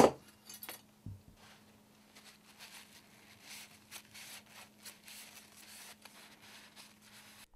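A sharp knock right at the start, then faint scuffing and rubbing as a cloth rag wipes over the crowns of freshly fitted pistons in a motorcycle engine's cylinder barrels, over a faint steady hum.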